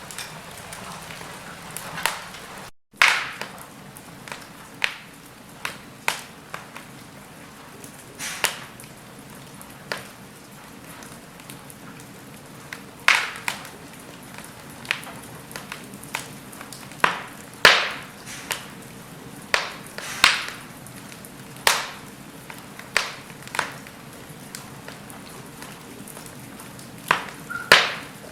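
Wood fire burning in a fireplace, the logs crackling with irregular sharp pops over a soft steady hiss. The sound drops out for a split second about three seconds in.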